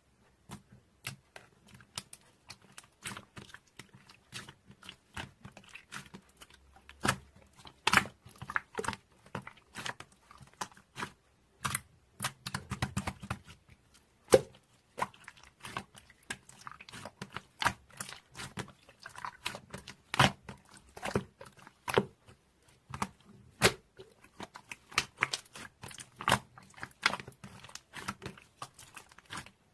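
Clear slime with gummy-bear charm parts being squeezed and pressed by hand, giving an irregular run of sharp pops and clicks.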